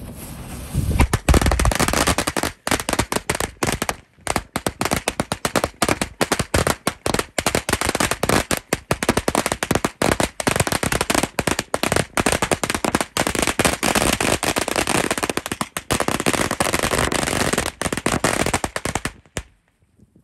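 A long string of Black Cat color salute firecrackers going off in a rapid, continuous run of very loud bangs. It starts about a second in and stops abruptly about a second before the end.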